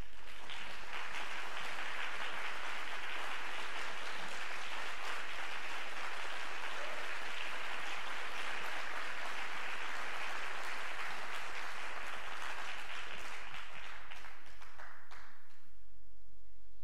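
Audience applauding, a dense run of clapping that dies away about a second before the end.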